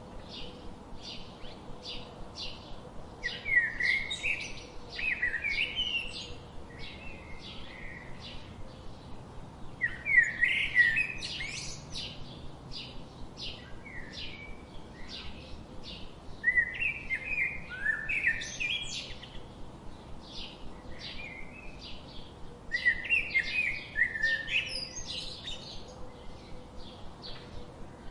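Songbirds: a steady run of short high chirps, about three a second, with a louder warbled song phrase breaking in four times, roughly every six seconds.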